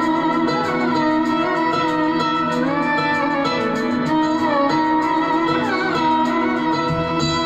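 Music played back through a 5.1 home theater speaker system: a plucked-string melody with notes that slide up and down in pitch, over steady bass.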